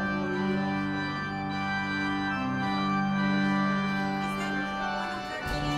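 Church organ playing sustained chords, with a brief break and a change to a new chord near the end.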